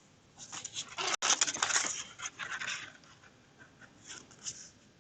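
Stiff cardstock pieces rustling and rubbing as they are handled and pressed together, in short bursts that are busiest in the first three seconds and trail off to a few faint rustles.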